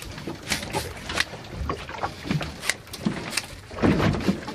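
Irregular sharp clicks and knocks, about one every half second, from a live western rock lobster being handled on a boat's carpeted deck: its spiny shell and legs knock and scrape. A steady low rumble of the boat runs underneath.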